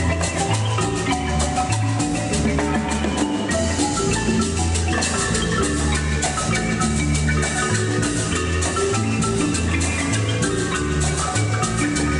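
A marimba band playing: several players on one large wooden marimba, with congas, a metal güira scraper keeping time, and a steady bass line underneath.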